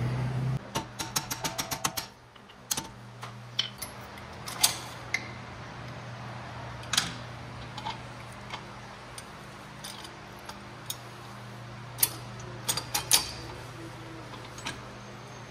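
Hand tools and metal parts being worked: a quick run of about eight clicks in the first two seconds, then scattered metallic clinks and taps, over a steady low hum.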